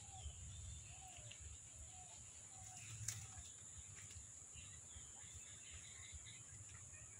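Faint outdoor ambience: a bird repeats a short falling call about five times in the first three seconds, with other birds chirping later, over a steady high insect drone. A single sharp click about three seconds in.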